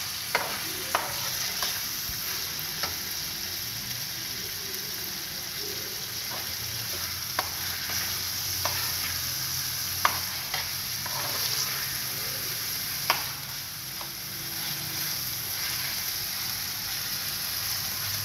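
Cubed chicken sizzling in hot oil in a metal frying pan while a spatula stirs it, scraping and tapping against the pan in sharp ticks at irregular moments, the loudest about ten seconds in and again about three seconds later.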